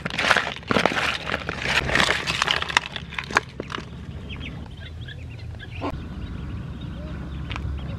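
Crab shells crackling and clicking with wet squishing as raw crab pieces are mixed with sauce by hand in a bowl, for about the first three seconds. After that it goes quieter, with faint peeping of ducklings.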